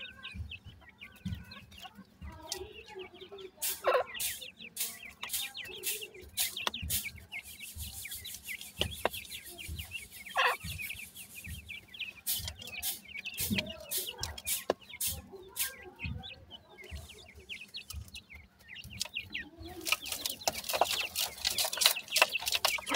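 Young grey francolins (teetar chicks) giving many short, high chirps, with sharp clicks and rustling dust as they peck, scratch and dust-bathe. The chirping and rustle are thickest near the end.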